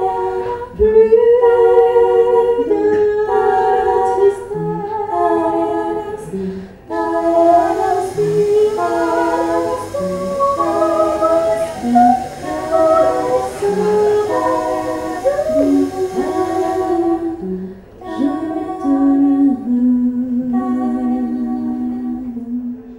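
Vocal music: several voices singing together in harmony, ending on a long held low note that fades out.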